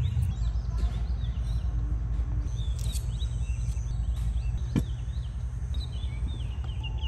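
Outdoor ambience: small birds chirping in quick short calls over a steady low rumble, with one sharp click a little past halfway.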